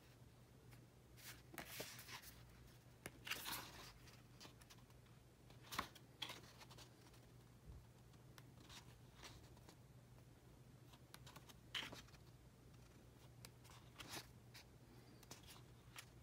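Faint paper rustles as the pages of a softcover booklet are handled and turned, a soft brush or flip every few seconds.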